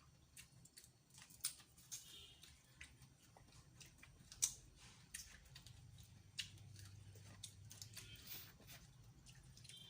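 Faint, scattered clicks and crackles of boiled seafood being eaten and handled by hand, with one sharper click about halfway through.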